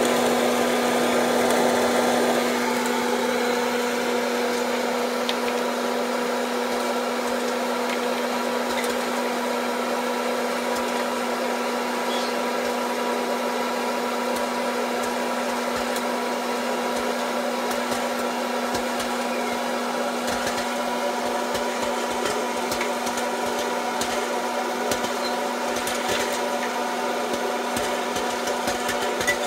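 Death Star hot-air popcorn maker running: its fan blows with a steady hum while kernels pop, the pops sparse at first and more frequent in the second half as the dome fills with popcorn.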